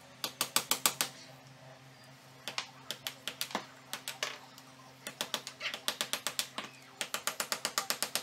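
Hammer striking a chisel in quick runs of sharp blows, several a second with short pauses between runs, chipping ceramic wall tile and old mortar off a concrete block wall.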